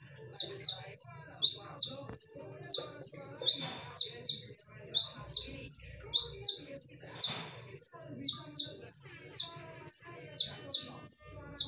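A konin bird repeating sharp, loud chirps, each sliding down in pitch, alternating a higher and a lower note about two or three times a second, used as a lure call for training songbirds. Fainter twittering runs underneath.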